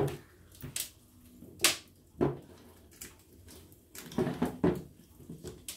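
Scattered clicks and knocks of a folding hex key and metal stapler parts being handled on a wooden workbench while screws are taken out of the air stapler, about half a dozen sharp taps at uneven intervals.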